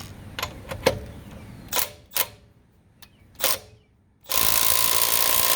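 A few short clicks and knocks, then about four seconds in a Milwaukee M12 Fuel right-angle impact wrench starts hammering loudly and steadily, working to break loose a lug nut torqued to 210 ft-lb.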